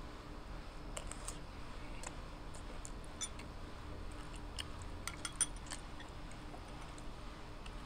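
Metal spoon clinking and scraping against a ceramic rice bowl while eating: a scatter of light clicks, thickest and sharpest about five seconds in.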